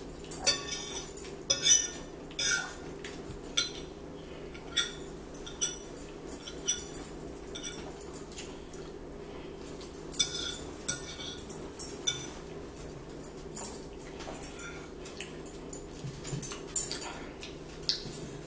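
Metal forks clinking and scraping against dinner plates: many short, irregular clinks as the last bits of food are picked up. A steady low hum runs underneath.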